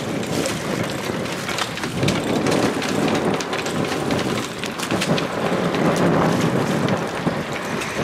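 Strong wind (about 27–35 knots) buffeting the microphone in gusts, over a patter of quick light clicks from the sailboat's deck winch as a mooring line is hauled in.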